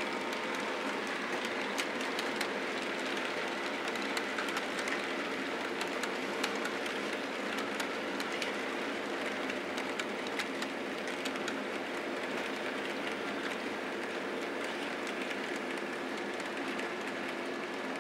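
HO-scale model trains running on the layout's track: a steady hum from the small electric locomotive motors, with many small clicks of wheels over rail joints.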